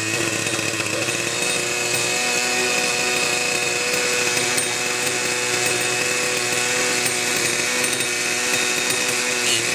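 Kalt Baron 50-size RC helicopter's two-stroke glow engine running steadily with the rotor turning, its pitch stepping up slightly about a second in. Onlookers ask about a noise in it, which the owner judges normal.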